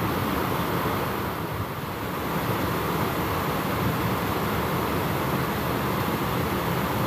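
Steady rush of water pouring over a small stone weir and spillway into a shallow stream, briefly a little softer between about one and two seconds in.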